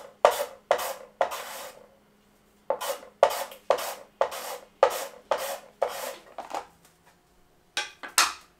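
A carrot being shredded into julienne strips: repeated short scraping strokes, about two a second, with a pause near two seconds in and another about a second before the end.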